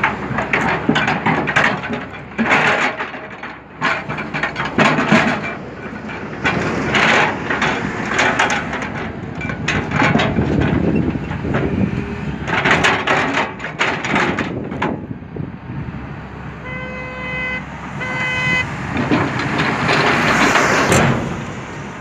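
Hyundai crawler excavator at work: its diesel engine running under load, with repeated surges of noise as the bucket scrapes up soil and dumps it into a tipper truck. A vehicle horn sounds twice, briefly, about three-quarters of the way through.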